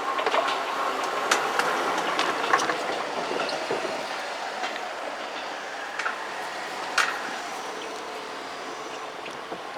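Kintetsu electric train running along the track, wheels clicking over rail joints with occasional sharp clicks, the rail noise slowly fading as the train moves away.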